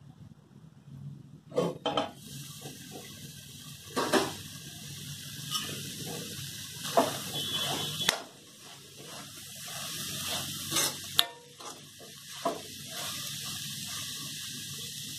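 Metal clanks of a steel pan and its lid, then a spatula stirring and scraping cooked elephant foot yam leaves around the steel pan, with sharp knocks of the spatula on the rim over a steady hiss of sizzling.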